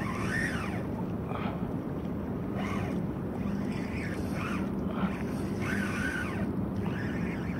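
Fishing reel whirring in short runs that rise and fall in pitch, about ten of them at uneven intervals, while a hooked fish pulls on the bent rod. Wind and water noise run underneath.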